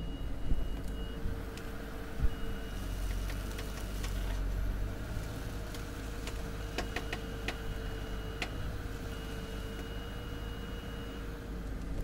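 Mercedes SL500's 5.0-litre V8 idling, heard from beside the front wheel, with sharp pops at irregular intervals, the strongest in the first two and a half seconds. The popping comes from the power steering rack.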